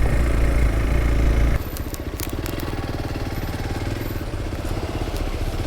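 Hero Xpulse 200 4V's single-cylinder engine running on a rough rocky trail: loud under throttle, then about a second and a half in it drops to a quieter, even low chugging as the throttle comes off. A few short clicks and clatters follow shortly after the drop.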